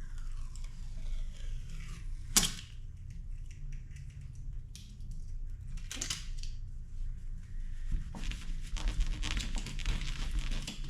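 A vinyl sticker being scraped and peeled off. There is a sharp tap about two seconds in and another about six seconds in, then rapid scratchy scraping and tearing over the last few seconds.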